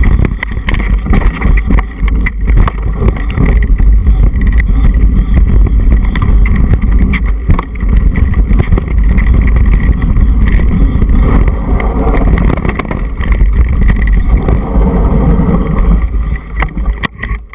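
Wind buffeting the microphone of a mountain bike's action camera at speed, with rattling from the bike over the rough dirt trail. It dies down near the end as the bike slows.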